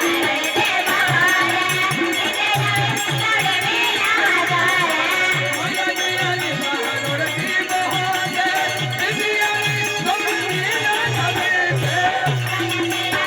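Adivasi songadya-party folk music: a steady low drum beat under a wavering melody line, with rattles.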